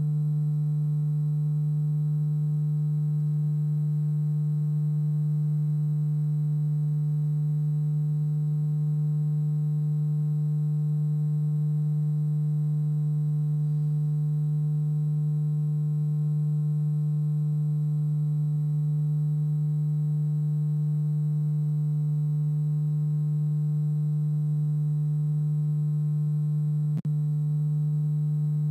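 Steady low hum: a single unchanging tone with fainter overtones above it, cutting out for an instant near the end.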